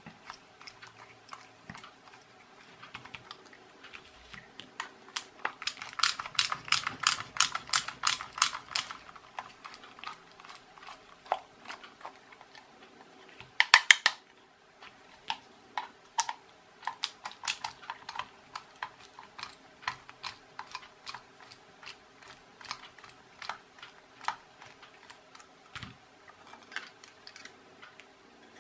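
Light, quick clicking of a hand screwdriver with a triangular bit working the screws out of a plastic phone-charger case, with a dense run of clicks a few seconds in and a louder cluster about halfway through.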